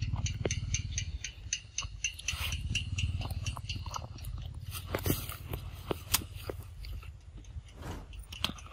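Young macaques biting and chewing ripe papaya: wet, irregular chewing and smacking with short crackling clicks, the sharpest about five and six seconds in.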